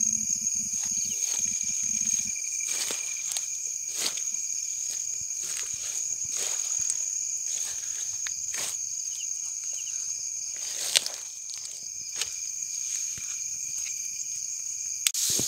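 Steady high-pitched chorus of night insects calling, with footsteps and the rustling and snapping of leaves and stems as someone pushes through brush. There are a few sharper clicks, the loudest about eleven seconds in.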